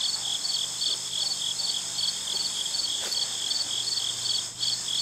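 Crickets chirping steadily, about two to three high chirps a second, over a continuous high insect hiss. A faint knock of metal comes about three seconds in, from the fork clamp being tightened on the loader bucket.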